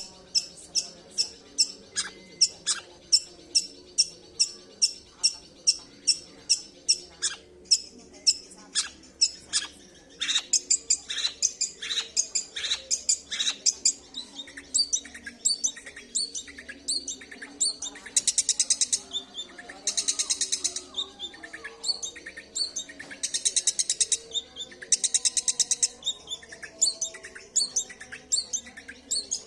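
Long-tailed shrike singing: a long run of sharp, high repeated notes at about three a second, louder and quicker from about ten seconds in, then several rapid buzzy rattles of about a second each. These are the full mimicry-and-rattle phrases that keepers call "isian" and "tembakan".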